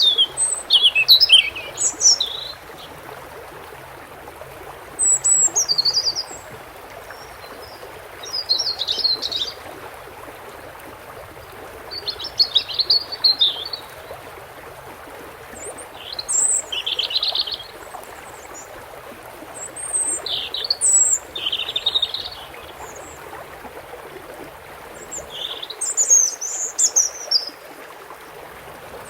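European goldfinch singing short, rapid twittering phrases, about seven of them, each a second or two long with pauses between, over a steady hiss of running water.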